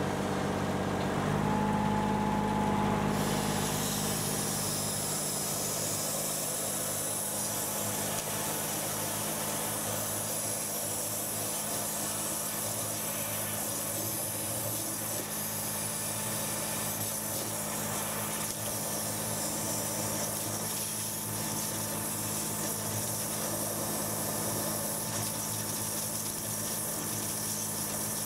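Hydrojetter's engine and high-pressure pump running steadily under load, with the hiss and rush of the water jet from a Warthog jetting nozzle blasting through a blockage in a 4-inch pipe; the hiss comes in about three seconds in.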